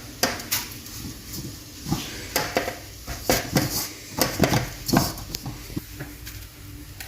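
Shredded kunafa dough being handled and put into a baking tray by hand: irregular rustles and light knocks.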